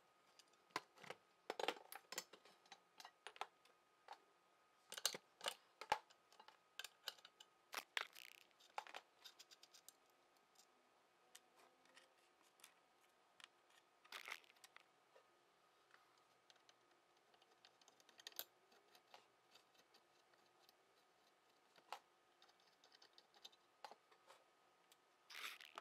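Irregular light clicks and metallic clinks of small metal parts and hand tools being handled, busy in the first ten seconds, then sparser, with a short cluster near the end.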